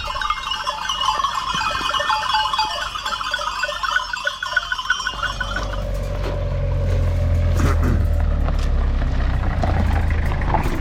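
Many sheep bells jangling together as a flock moves. About halfway through, the bells give way to a vehicle engine idling with a steady low hum.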